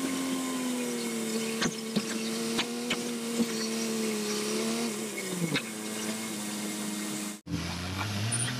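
Truck engine heard from inside the cab while driving slowly, a steady whirring hum that dips in pitch about five and a half seconds in, with a few light clicks. The sound cuts out for a moment near the end.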